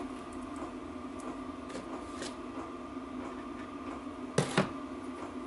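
A hand pump oil can being squeezed while oiling a bearing gives two sharp clicks in quick succession about four and a half seconds in. A steady hum runs underneath.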